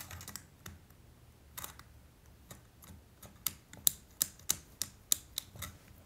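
A string of light, irregular clicks and taps from small hard objects being handled, sparse at first and coming several a second in the second half.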